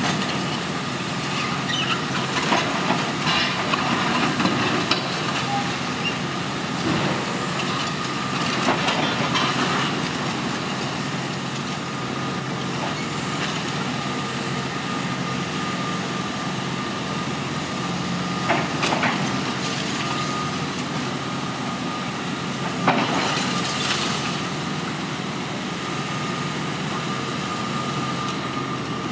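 Demolition excavator running steadily with a thin high whine, its hydraulic crusher jaws biting through a concrete floor slab. Scattered crunches and clatters of breaking concrete and falling rubble break through, the sharpest about 23 seconds in.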